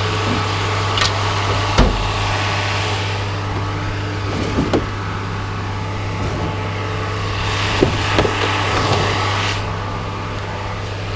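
Steady low hum of an idling vehicle engine, with a few sharp knocks and clanks of scrap being handled, scattered through it.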